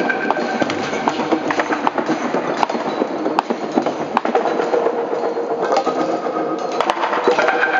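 Improvised percussion on found objects: a dense clatter of knocks and taps on wood and metal over held ringing tones, with new ringing tones coming in about six seconds in.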